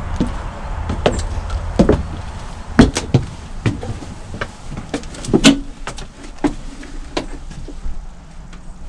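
Footsteps climbing metal boarding stairs and stepping into an aircraft doorway: about a dozen irregular clunks and knocks, the loudest a little under three seconds in and again about five and a half seconds in, over a low rumble that fades near the end.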